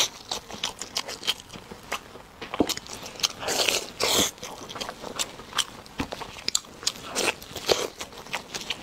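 Close-miked biting and chewing of glazed spare ribs, meat being pulled off the bone, with many sharp clicks and louder noisy bursts a little after three seconds, at about four seconds and again past seven seconds.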